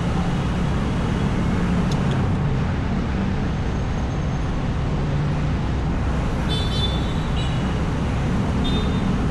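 City street traffic: a steady hum of vehicle engines and road noise, with a click about two seconds in and a few brief high-pitched squeaks about seven seconds in.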